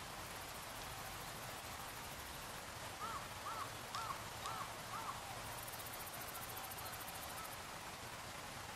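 A bird calls five times in quick succession, about two calls a second, over a steady outdoor hiss.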